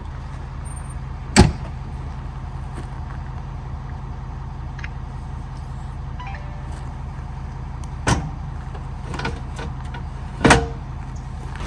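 Truck engine idling steadily under three sharp knocks, the loudest about a second and a half in and the other two near the end, with a few small clicks between them.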